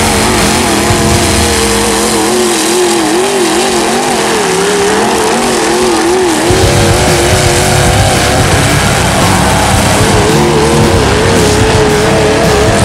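Demolition derby truck engines running hard at high revs, their pitch wavering up and down as the trucks spin their wheels and push in the dirt. A deeper rumble comes in about six and a half seconds in.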